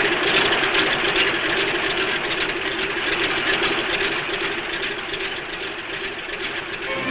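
A motor engine sound effect running with a steady drone, easing slightly shortly before the end.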